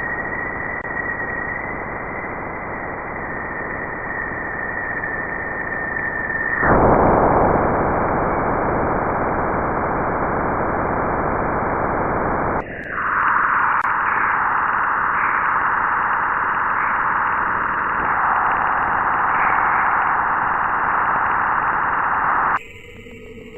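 Planetary radio emissions recorded by a spacecraft and turned into audio: a continuous static-like hiss with a thin steady high tone over it. About seven seconds in the tone stops and the hiss gets louder and fuller. About thirteen seconds in it switches to a brighter, higher rushing hiss, and near the end it gives way to quieter thin tones.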